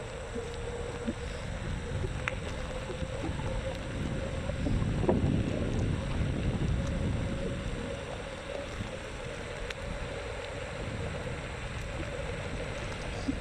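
Xiaomi M365 electric scooter being ridden: wind buffeting the microphone and road rumble, with a steady whine running through it. The rumble swells for a few seconds near the middle.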